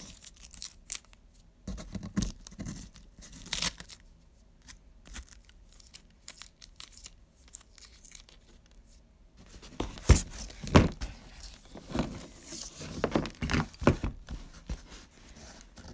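Clear Scotch tape being pulled and torn from the roll and pressed and rubbed down onto a cardboard box, in a run of short rips and scrapes. There is a quieter stretch in the middle, and the loudest rips come about ten to eleven seconds in.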